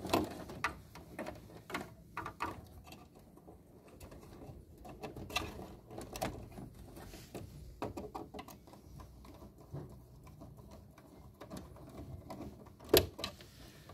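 Rustling, scraping and scattered small clicks of a wire being worked through plastic cable ducts in an electrical control panel and fastened into a relay's screw terminal with a screwdriver. A sharper click comes about a second before the end.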